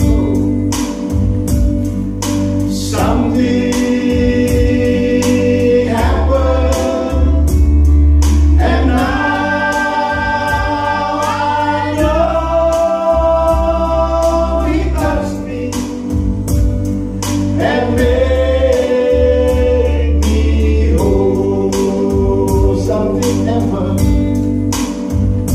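Several men singing a gospel song together to electronic keyboard accompaniment with a steady beat. Long notes are held in harmony around the middle.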